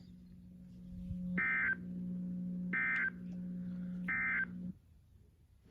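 Emergency Alert System end-of-message code: three short bursts of the warbling digital data tones, about 1.4 s apart, closing a severe thunderstorm watch alert. A steady low hum runs under them and stops just after the third burst.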